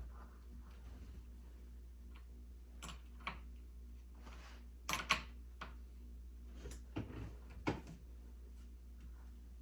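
Scattered clicks and knocks of chainsaw parts and tools being handled during chain and saw preparation, a few light knocks with louder clusters about five and seven seconds in, over a steady low hum.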